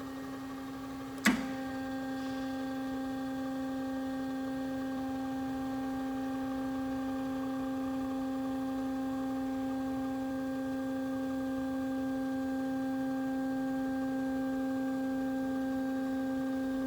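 Hydraulic pump motor of an Amada H-900 HD band saw humming steadily under load as it raises the saw head. A single sharp click about a second in, after which the hum picks up extra higher tones and gets slightly louder.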